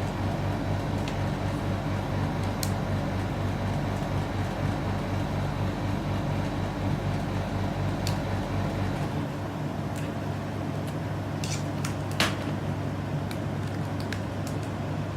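Steady mechanical hum, its lowest part dropping away about nine seconds in, with a few short sharp clicks scattered over it, the loudest about twelve seconds in: small screws being tightened into the sides of a laptop hard-disk caddy.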